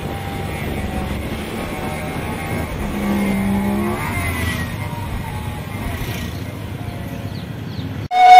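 Small motorcycle engines running with road and wind noise while riding; another motorbike's engine comes up clearly about three seconds in. Near the end the sound cuts abruptly to loud traditional gendang beleq music.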